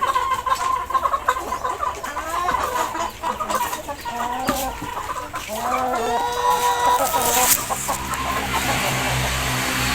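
Chickens clucking, with many short calls overlapping. About eight seconds in, a steady low hum and hiss begin underneath.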